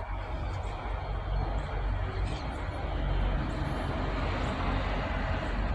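Adelaide 3000/3100 class diesel railcar approaching slowly, a steady low rumble that grows louder over the first three seconds or so, then holds.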